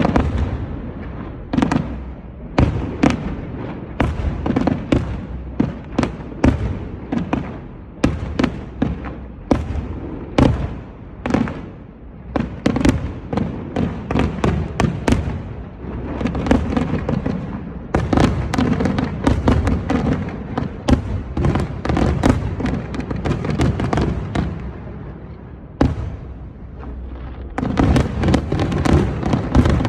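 Fireworks going off: many sharp bangs at irregular intervals, several a second at times. There are denser stretches of rapid crackling from the middle onward and again near the end.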